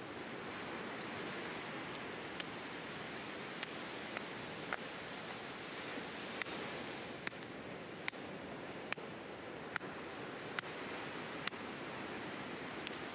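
Campfire crackling: a steady hiss with sharp, irregular pops about once a second.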